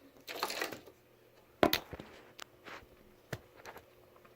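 Objects being shifted and set down on a tabletop: a brief rustle or slide, then a sharp knock about a second and a half in, followed by a few lighter clicks.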